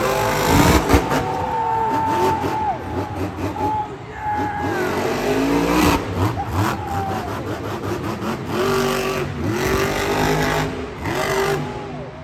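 Monster truck's engine revving hard up and down, over and over, during a freestyle run, with a couple of heavy thuds from the truck hitting the dirt.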